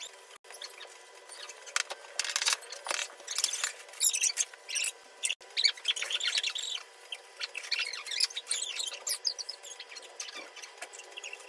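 Wet sponge and rubber gloves squeaking against glazed floor tiles during scrubbing, in irregular high-pitched squeaks.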